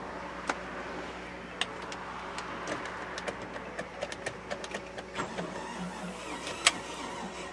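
Starter cranking the boat's 350 small-block Chevy V8, turning it over without it firing, on a first start attempt after the boat has sat unused through the winter. A steady mechanical whir runs throughout, with many sharp, irregular clicks.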